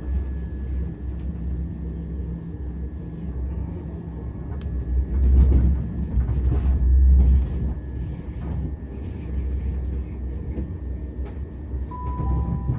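Train running with a steady low rumble and a faint steady whine, swelling louder about five to seven seconds in. Near the end a short two-note tone steps down in pitch.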